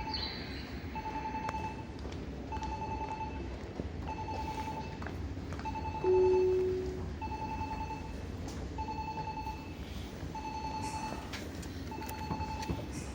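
Repeating electronic signal tones on a railway platform: a short mid-pitched beep about once a second, and a louder, deeper tone that sounds and fades away about every seven seconds.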